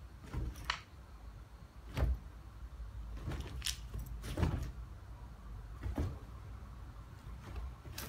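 A Jack Russell terrier and a larger dog play-fighting on a blanket-covered couch: several soft thumps and rustles of bedding as they jump and paw at each other.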